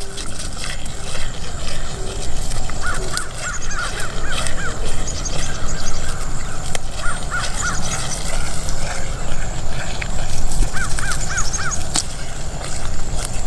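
Outdoor ambience with birds calling in short runs of repeated rising-and-falling notes, three times, over a steady low rumble. A single sharp click comes near the end.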